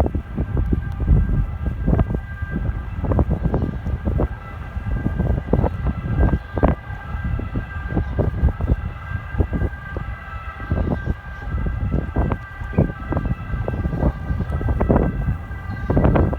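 A train passing close by: a continuous, irregular clatter of wheels over the track, with several steady high tones held together over it.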